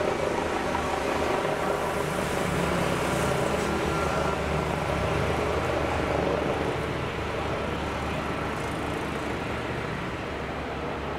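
Leonardo AW169 helicopter's twin turboshaft engines and main rotor running as it lifts off and climbs away, a steady turbine-and-rotor noise that grows a little fainter in the second half.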